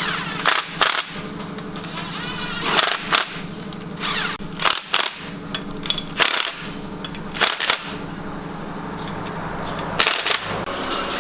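Workshop air tool firing in about a dozen short, sharp bursts, mostly in pairs, like an impact gun run on bolts during reassembly of the transmission filter, over a steady low hum.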